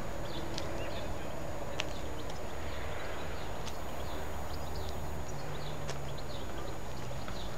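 Footsteps on a paved path, a few irregular knocks, over a steady low rumble.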